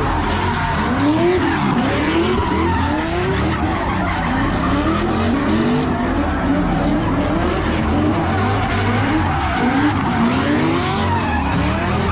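A car doing donuts on asphalt: its engine revs up and drops back over and over while the tyres skid and screech.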